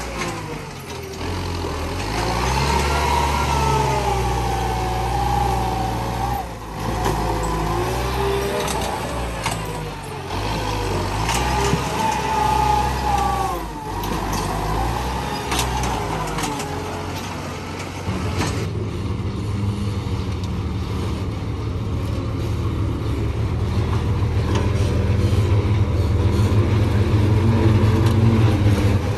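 Kubota tractor's diesel engine working as it pushes soil with its front blade, its pitch rising and falling with the load, with a whine over it. About two-thirds of the way through it gives way to the deeper, steady rumble of a dump truck's diesel engine.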